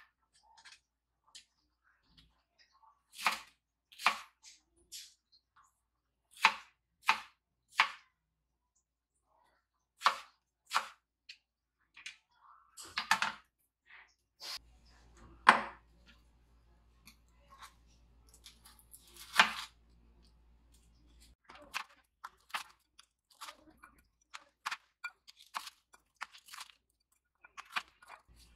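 Kitchen knife chopping ginger on a wooden cutting board: separate sharp knocks of the blade through the food onto the board, spaced irregularly. A few louder handling knocks come near the middle, and in the last several seconds there is a quicker run of light chopping taps.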